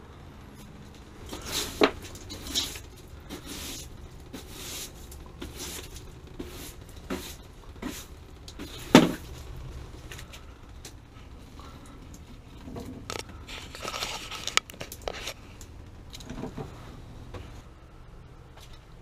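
Scattered knocks, scuffs and rustles of someone climbing down a ladder into a cellar, with sharper knocks about two seconds in and about nine seconds in.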